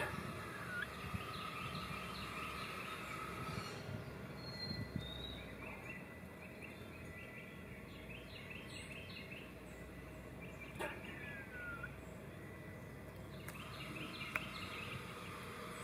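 Eastern gray squirrel scolding: bouts of quick, short call notes, several a second, that pause through the middle and start again near the end.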